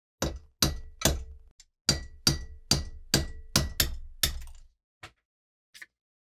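About ten sharp metal-on-metal hammer taps over four seconds, each with a short ring, working a pin out of an antique saw tooth setter. Two faint ticks follow.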